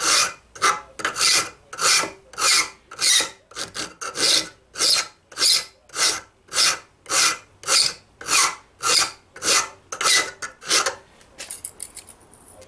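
Flat hand file rasping back and forth on the knuckles of a steel barrel hinge clamped in a vise, about two strokes a second, squaring up the barrel ends so the two hinge halves fit together. The filing stops about eleven seconds in, followed by a few faint clicks.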